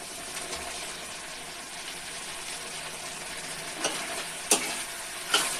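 Thick masala gravy sizzling steadily in a frying pan as a spoon stirs peas through it, with a few sharp scrapes of the spoon against the pan in the second half.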